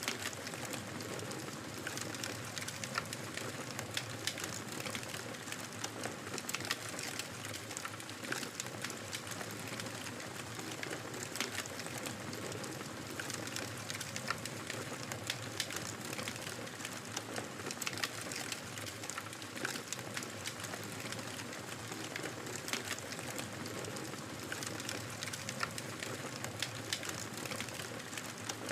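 Wood fire crackling steadily in a fireplace, with frequent irregular sharp pops and snaps over a soft hiss of burning.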